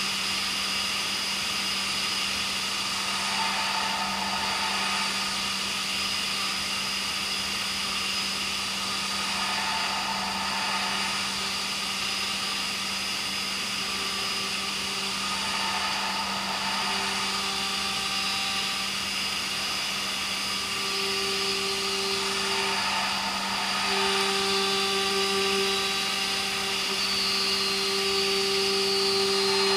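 CB Ferrari GT2000 CNC machining centre milling H13 tool steel: the spindle runs with a steady hum and whine, while a cutting tone comes and goes and grows stronger in the second half, with a swell about every six seconds.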